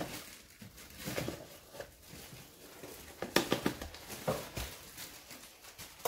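A metal tablespoon scooping cornstarch and tipping it into a bowl of batter: a scattering of light clicks and scrapes, the sharpest about three and a half seconds in.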